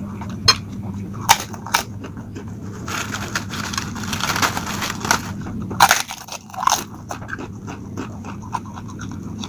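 Close-up eating sounds of instant noodles from a glass bowl: a few sharp clicks of a metal spoon against the glass and chewing, with a longer crunching, crackling stretch about three to five seconds in while a cracker is handled. A steady low hum runs underneath.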